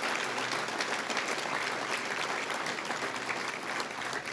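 Audience of diners applauding, many hands clapping together in a dense, even patter that eases off slightly near the end.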